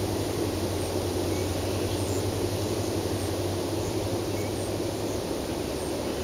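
Steady low outdoor rumble, with a low hum that stops about five seconds in and faint short high chirps about once a second.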